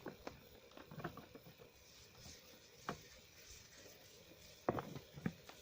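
A few light, scattered clicks and knocks, like small objects being handled, the loudest two near the end.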